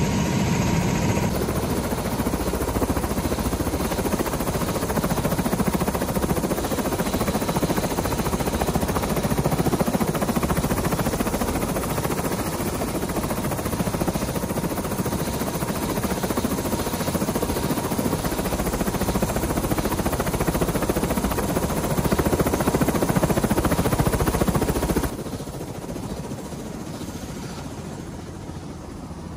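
Helicopter running on the pad, a loud steady rush of rotor and engine noise close by. About 25 seconds in it drops sharply and turns muffled, as heard from inside the cabin.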